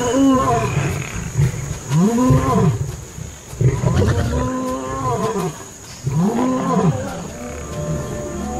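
Male lions fighting and roaring, four loud calls about two seconds apart, each rising and then falling in pitch. Music comes in near the end.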